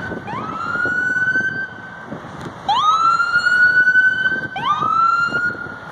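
Emergency vehicle siren wailing in three repeated sweeps, each climbing quickly in pitch and then holding, louder from about halfway through.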